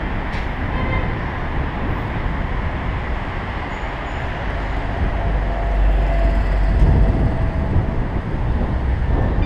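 Road traffic noise with wind rumble on a moving bicycle's action-camera microphone, a steady noisy roar. A heavier low rumble swells from about five seconds in and eases near the end.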